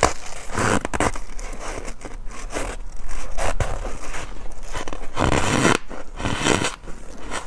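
Someone biting and crunching mouthfuls of powdery freezer frost, a run of crisp, irregular crunches close to the microphone.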